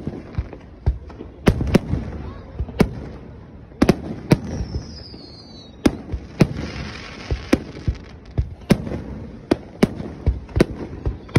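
Aerial fireworks display: shells bursting in a rapid, irregular string of sharp booms, about one to two a second. A falling whistle comes in about four seconds in, and a burst of hiss follows a couple of seconds later.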